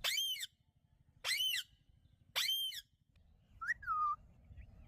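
Parrot giving three short, shrill calls about a second apart, then a single rising-and-falling whistle near the end.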